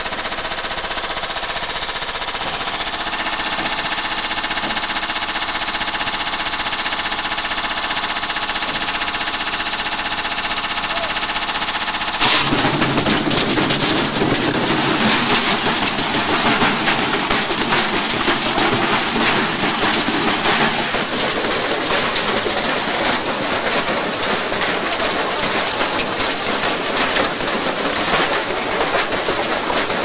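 Washing machine with a brick tumbling in its drum: a steady motor whine under rapid, hard banging. About twelve seconds in comes a loud bang, and after it the banging turns into a louder, denser, irregular clattering and rattling.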